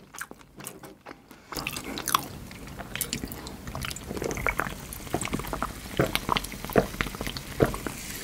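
Close-miked mouth sounds: chewing for about a second and a half, then a long drink from a can, with a run of gulping swallows.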